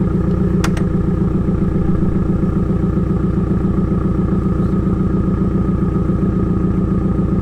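Subaru WRX's flat-four engine idling steadily with an even, fast pulse. A single light click about half a second in.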